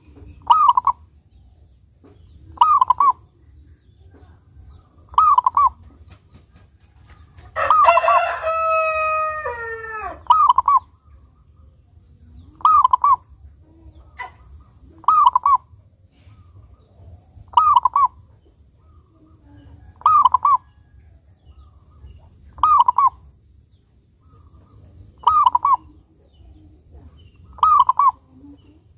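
Zebra dove (perkutut) cooing in short two-part phrases repeated about every two and a half seconds. A rooster crows once, about eight seconds in, the loudest sound.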